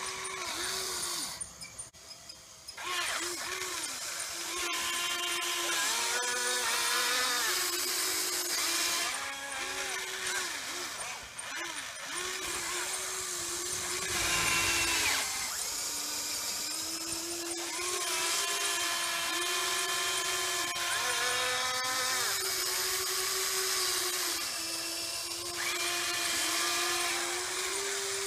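Huina 580 RC excavator's electric motors whining in short starts and stops as the boom, arm and bucket move, the pitch gliding up and down with each movement, with a brief pause about two seconds in.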